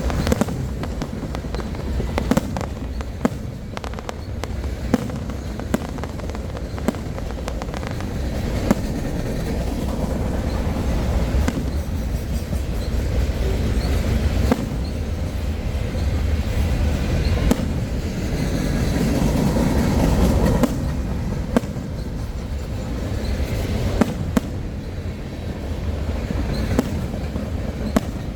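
Fireworks display: sharp bangs going off at irregular intervals over a steady low rumble.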